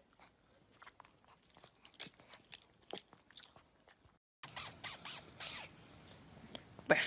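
A pug chewing close to the microphone: scattered short crunches and wet clicks of its mouth. About four seconds in the sound cuts out briefly, then comes back louder with a dog's mouth clicks and rustling.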